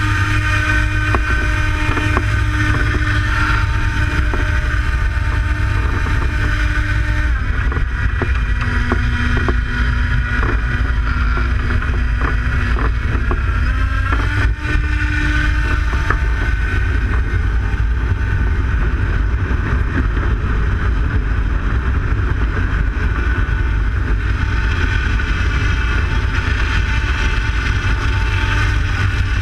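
Heavy wind rush on the microphone of a hang glider in flight, with the steady whine of the glider's harness-mounted electric propeller motor. The whine drops in pitch about seven seconds in and rises again around fourteen seconds.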